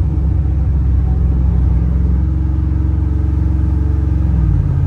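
Cammed 6.0-litre LS V8 (370 cubic inch, Comp cam, long-tube headers into a dual 3-inch exhaust) running steadily under light load as the pickup drives, heard from inside the cab. The engine note steps down slightly near the end.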